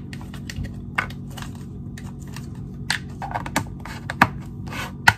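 Plastic food containers handled and their snap-lock lids closed: a string of irregular light clicks and short plastic rustles, with the loudest sharp snaps about four and five seconds in as lid flaps lock down.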